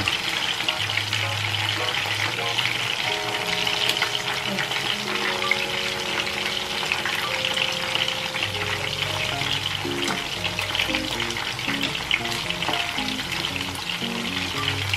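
Chicken wings frying in hot oil in a pan, a steady sizzle, as they are turned over with tongs. Soft background music with held notes comes in about three seconds in.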